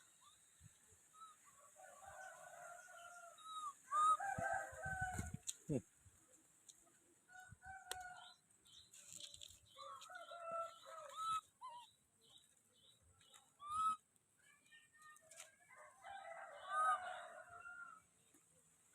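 A series of drawn-out animal calls, about five, each lasting one to two seconds, with a few low knocks around four to six seconds in.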